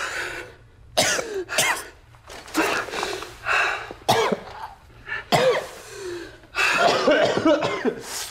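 A man coughing, choking and grunting in short, strained bursts, about one a second, as if struggling for breath.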